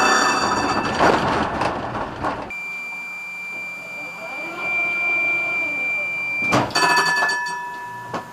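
Tram running on street track with a high ringing whine for about two and a half seconds, then the tram standing still with a steady high electronic tone for about four seconds, ending in a click and a few shorter tones.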